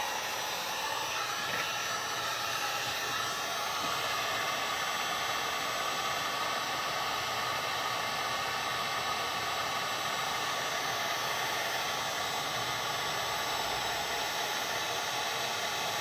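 Wagner heat gun blowing hot air steadily, a constant fan whoosh with a faint tone in it, melting solder on a laptop circuit board.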